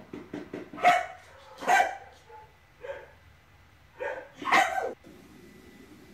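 Dog barking: about five loud, short barks spread over four seconds, cutting off suddenly near the end.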